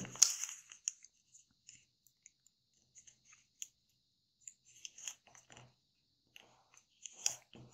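Square of kami origami paper being folded and creased by hand: faint scattered rustles and small crackles of the paper, busier about five seconds in and again near the end.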